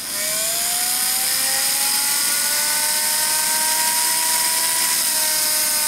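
The tiny electric motor and propeller of a PowerUp 2.0 paper-airplane kit whining as it spins while its battery charges from the charger. The pitch rises over the first couple of seconds, then holds steady and dips slightly near the end.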